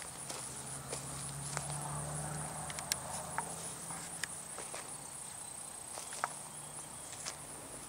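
Open-field ambience: a steady high-pitched insect drone, a low steady hum underneath, and scattered light clicks and rustles.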